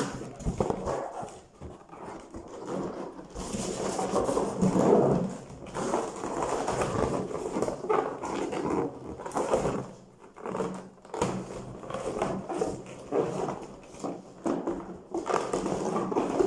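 Inflated latex balloons rubbing and squeaking against each other and against the hands as they are twisted and tied together, in irregular spells.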